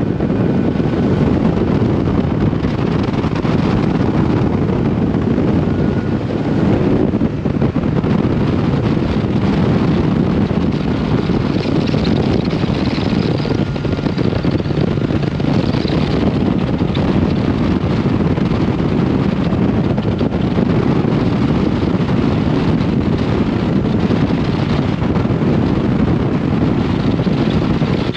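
Motorboat running at speed across a lake: a loud, steady rush of wind on the microphone with the boat's engine running underneath.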